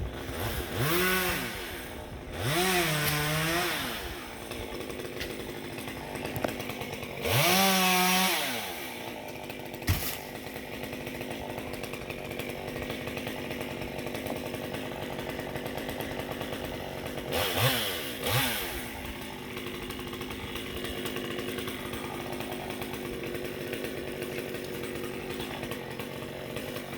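Chainsaw engine idling steadily and revved up briefly five times, each rev rising in pitch and falling back. One sharp knock comes about ten seconds in.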